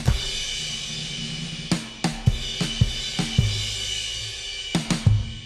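Theme music played on a drum kit: a ringing cymbal wash under scattered heavy drum hits, with two last hits near the end.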